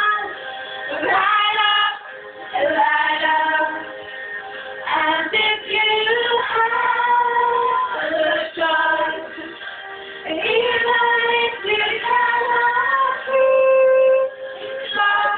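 Young female voices singing a slow song together, with long held notes.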